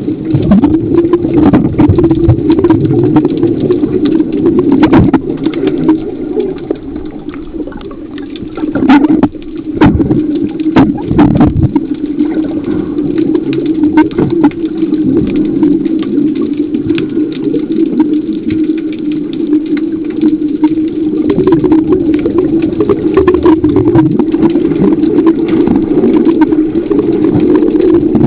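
Steady motor drone of an underwater diver propulsion scooter, heard underwater through the camera's housing, with scattered sharp knocks, a cluster of them about a third of the way in.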